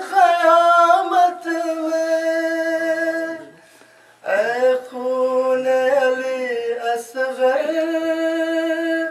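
A man's solo voice singing a salaam, an Urdu Muharram elegy, in long drawn-out melismatic notes. He breaks off about three and a half seconds in, then takes the line up again a second later.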